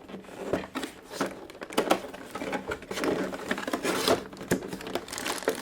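A cardboard toy box being opened and its contents handled by hand: irregular rustling, scraping and crinkling of cardboard and plastic packaging, with a few light taps.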